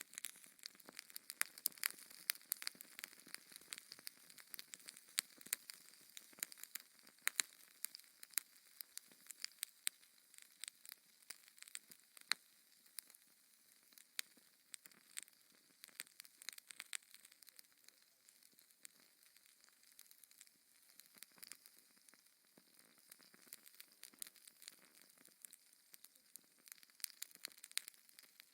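Wood fire crackling: many irregular small pops and snaps over a soft hiss, denser in the first half.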